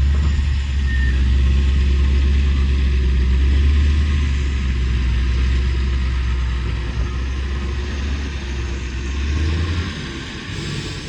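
Heavy diesel engine of earthmoving machinery running steadily under load with a deep low rumble, easing off about ten seconds in.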